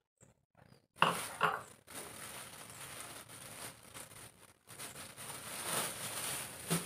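A glass bowl set down on a tiled countertop, knocking twice about a second in, followed by a thin plastic bag rustling as it is handled and opened.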